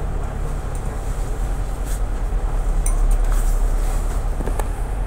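Double-decker bus's diesel engine idling, heard from inside the upper deck as a steady low rumble, with a few sharp clicks of cabin rattle.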